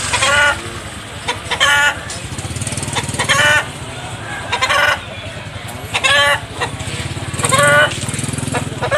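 A chicken calling over and over, one short loud call about every second and a half, over a motorcycle engine idling.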